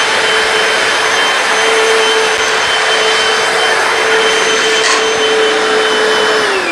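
Hoover PowerDash hard floor cleaner running with a steady motor whine over a loud rush of suction. Near the end it is switched off and the motor winds down, its whine falling in pitch.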